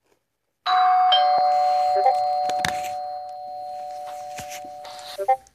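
Two-note doorbell chime: a higher "ding" and then a lower "dong" about half a second later, both ringing on and fading slowly until they cut off, with a few clicks over them. A short chat-message notification blip follows near the end.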